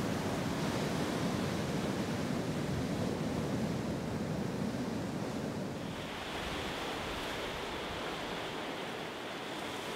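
Ocean surf breaking and washing, a steady rush of waves. It thins out and gets a little quieter about six seconds in.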